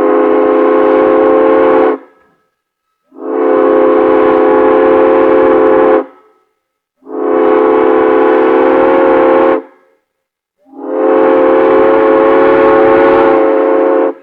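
A train whistle sounds a chord of several notes in four long blasts of about three seconds each, with roughly a second between them. The first blast is already sounding and cuts off about two seconds in.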